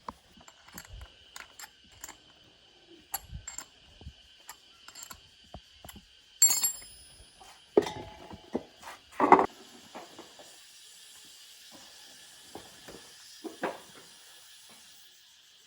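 Metal tools and parts being handled during motorbike wheel repair: scattered clicks and knocks, one ringing metallic clang about six seconds in, then a couple of dull thuds. A faint steady hiss comes in after about ten seconds.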